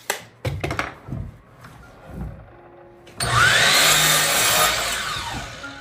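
A few sharp knocks of boards being handled. Then, about three seconds in, a power saw cuts through a board for about two and a half seconds, its whine bending up and back down before it fades.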